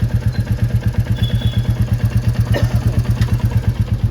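Royal Enfield Classic 350's single-cylinder engine idling through its exhaust with a steady, even pulse. The owner hears it as having more bass and thump since a fuel-system cleaner additive went into the tank.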